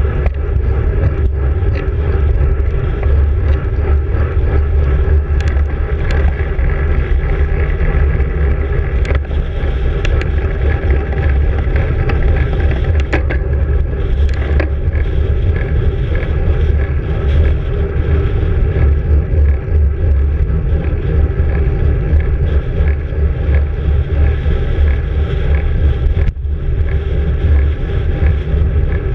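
Wind buffeting the microphone of a road bike riding at speed, a steady heavy rumble, mixed with tyre and road noise and a few sharp clicks.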